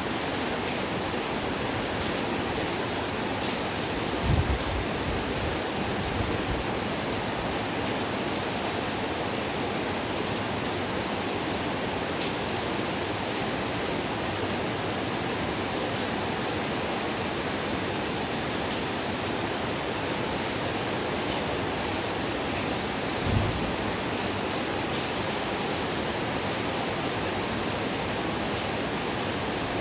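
Heavy rain falling steadily, a dense, even hiss. Two brief low thumps stand out, one about four seconds in and another about two-thirds of the way through.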